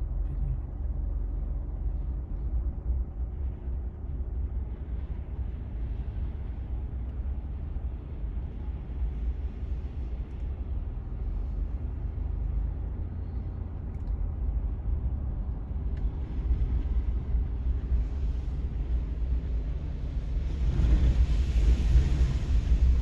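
Truck engine running with a steady low rumble; a louder rushing noise builds over the last few seconds.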